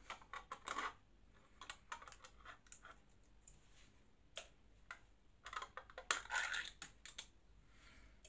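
Hands handling food packaging: irregular clusters of light clicks and plastic crinkling, the loudest burst about six seconds in.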